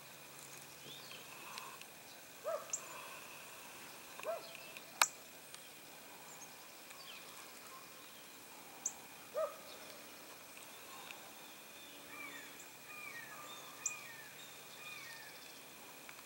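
Outdoor ambience of several birds calling: short high chirps, lower hooked call notes, and a run of falling notes near the end, over a faint steady high hum. A single sharp click about five seconds in is the loudest sound.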